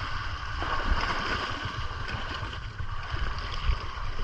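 Outdoor boat ambience at sea: wind buffeting the microphone in a low, uneven rumble over a steady wash of water.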